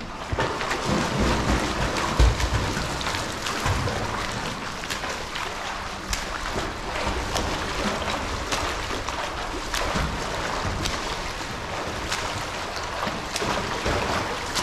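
Water splashing from a swimmer doing front crawl: arm strokes and a flutter kick churning the pool surface in a continuous, irregular wash of small splashes.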